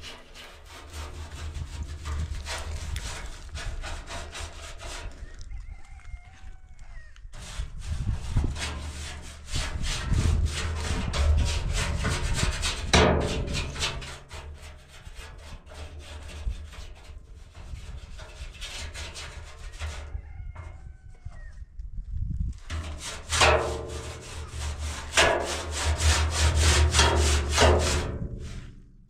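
Paintbrush scrubbing paint onto the inside of a rusty steel drum in rapid, repeated rubbing strokes, pausing twice. A rooster crows faintly in those pauses, about six and twenty seconds in.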